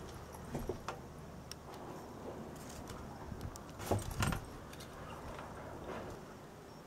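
Scattered clicks, knocks and light rattles inside a boat's wheelhouse, with a louder cluster of knocks about four seconds in, over a low steady hum.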